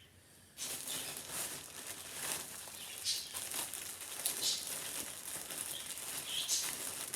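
Rustling and crinkling of clothing and packaging being handled, starting about half a second in and going on steadily with small crackles.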